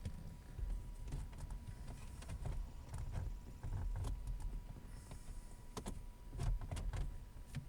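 Scattered plastic clicks and knocks with low handling rumble as a replacement power-window switch is dropped into a car's centre console.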